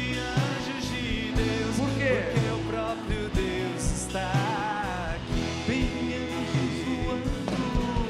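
Live worship band music with singing: a vocal line with wavering held notes over a steady beat, part of a Portuguese-language Catholic song about angels.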